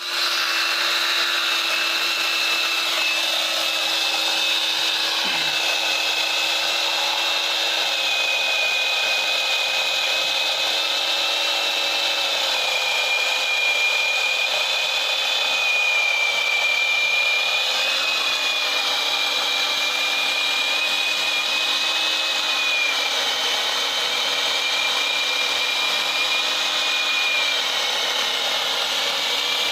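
48V cordless angle grinder fitted with a 12-inch chainsaw bar and chain, cutting through a tree trunk. The motor runs with a steady high whine over the rasp of the chain in the wood, its pitch sagging and recovering a few times as the chain bites.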